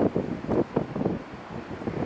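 Wind buffeting the microphone, rising and falling unevenly in gusts.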